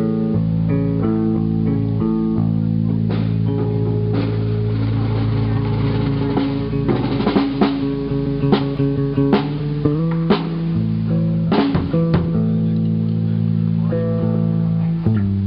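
Band playing through the PA at a soundcheck: guitar and bass guitar hold chords, with drum hits coming in about three seconds in.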